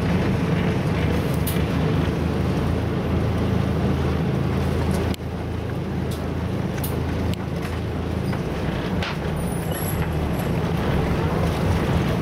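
Boat engine running steadily with a low drone, dipping briefly about five seconds in.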